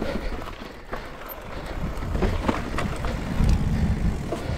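Pole Voima mountain bike descending dirt singletrack: tyres rolling and skidding over the rutted dirt, with rattling clicks and knocks from the bike and wind on the microphone. The low rumble grows louder about halfway through.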